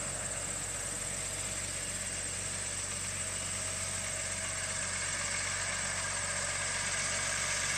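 An engine idling steadily, with a low, even hum that grows slightly louder toward the end.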